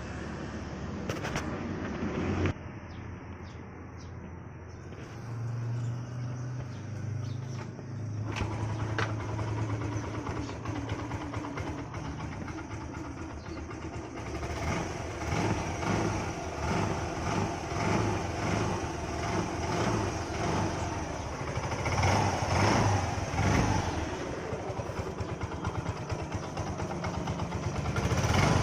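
Yamaha Ray scooter's single-cylinder four-stroke engine running just after engine repair work: it settles at a steady idle, then is revved in repeated throttle blips through the second half.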